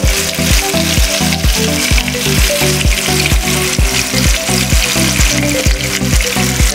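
Masala-coated chicken breast shallow-frying in hot oil in a pan, a steady sizzle and bubbling. Background music with a steady beat, about two beats a second, plays over it.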